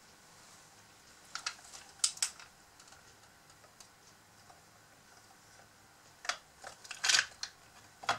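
Light clicks and clinks of the all-metal arm parts of a Huina 580 RC excavator being picked up and handled, in short clusters: a few about a second in, then a denser run from about six seconds in.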